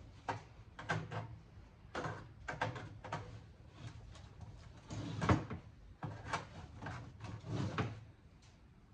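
A claw hammer and pry tool knocking and levering at the steel case of a cable box as it is forced open: a run of irregular metallic knocks and clunks, the loudest about five seconds in.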